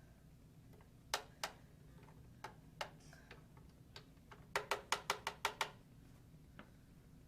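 Sharp taps of a hard object: two, then two more, then a quick run of about eight in a second.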